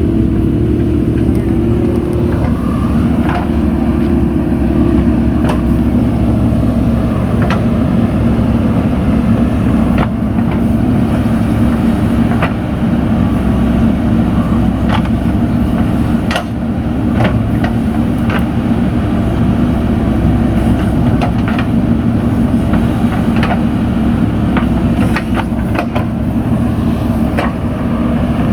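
JCB 3DX backhoe loader's diesel engine running steadily under working load, with scattered sharp clicks and knocks throughout.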